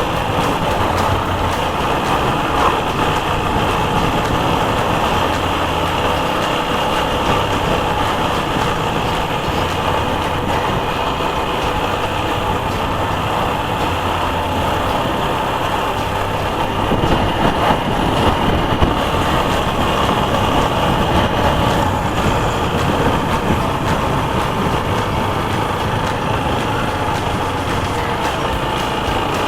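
TVS Apache RTR 160 4V's single-cylinder engine running as the motorcycle is ridden, with steady wind and road noise; the engine note changes a little over halfway through.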